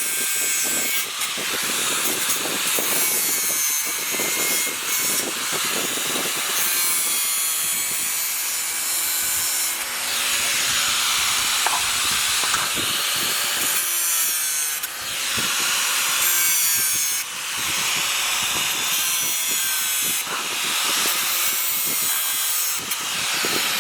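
Angle grinder grinding metal: a steady, high-pitched grinding whose pitch wavers as the disc is pressed on and eased off, with a few brief dips in level.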